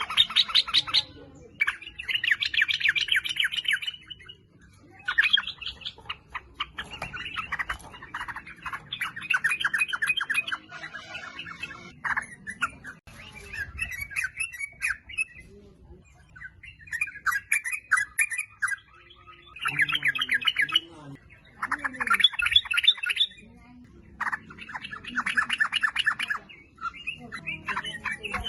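Yellow-vented bulbul (trucuk) calling: bursts of rapid chattering notes lasting a second or two, repeated every couple of seconds.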